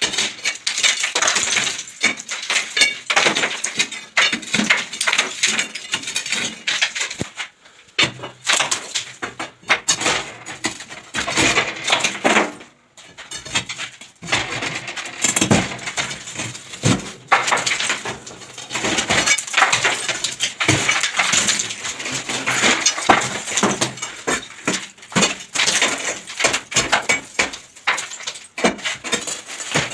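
Damp ceiling plaster being broken away, with many irregular sharp knocks and scraping and bits of debris clinking down, pausing briefly twice.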